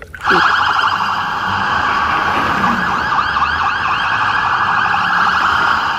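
Electronic police siren sound, a fast warbling wail with repeated rising and falling sweeps. It starts abruptly just after the start and keeps going.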